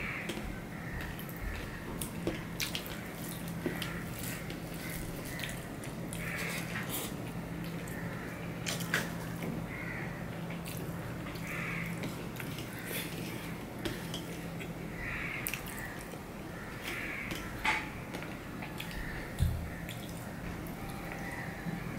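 Close-up eating sounds: chewing and lip smacking while fingers mix rice and fish on a steel plate, with many scattered sharp clicks. A steady low hum runs underneath.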